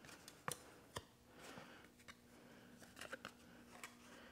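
Faint snips of scissors cutting a cardboard template, two sharp clicks in the first second, then light rustling and a few small taps as the cardboard is handled, over a faint steady hum.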